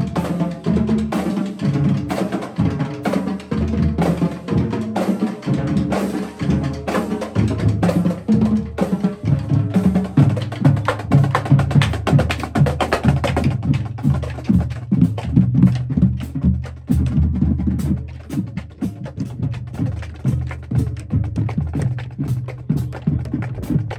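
Marching drumline playing a cadence on Pearl snare drums, tenor drums, bass drums and cymbals, with sharp stick clicks and rimshots over the drums. The low bass-drum hits grow stronger about ten seconds in.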